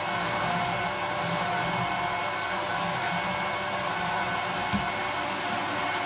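1988 Goblin Solo 302A cylinder vacuum cleaner running steadily with a steady motor whine while vacuuming, with one brief low knock a little before the end.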